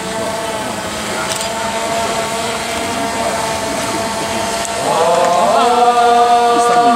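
A group of mikoshi bearers chanting in long, drawn-out notes, many voices at different pitches, growing louder about five seconds in.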